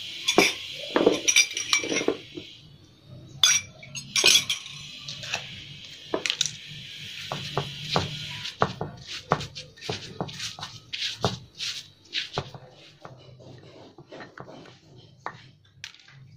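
A stone pestle knocking and grinding irregularly in a stone mortar (cobek) as a crumbly biscuit bait mix is mashed into a paste. The sharp clacks of stone on stone come thickest in the first half and thin out toward the end.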